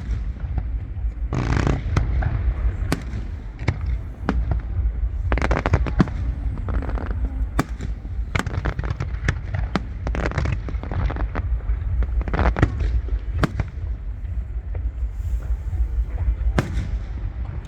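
Aerial fireworks going off in a rapid series of sharp bangs, some coming in dense crackling clusters, over a steady low rumble.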